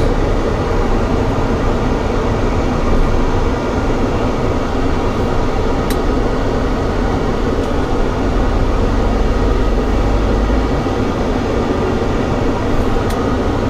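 Steady drone inside a Fendt tractor's cab on the road: engine and road noise mixed with the cab ventilation fans blowing. A couple of brief ticks stand out, one about halfway through and one near the end.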